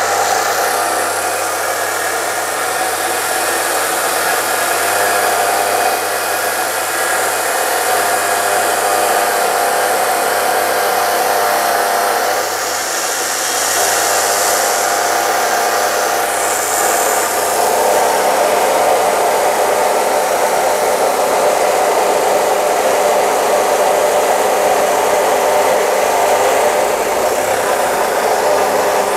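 DeWalt D28730 14-inch abrasive chop saw cutting through a WF 150 steel I-beam: a continuous grinding roar of the abrasive wheel on steel, the 2300-watt motor straining under heavy feed pressure but keeping running.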